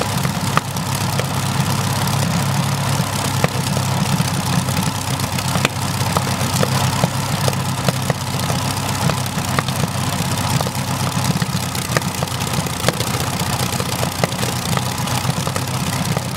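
Napier Lion 12-cylinder broad-arrow (W12) aero engine running steadily on a ground-run stand, driving its propeller. It makes a steady low drone with frequent irregular sharp pops.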